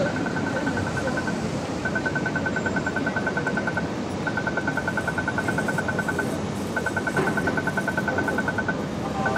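Rapid electronic ticking, about ten ticks a second, in runs of about two seconds with short breaks, typical of an accessible pedestrian crossing signal during the walk phase. Steady city traffic noise runs underneath.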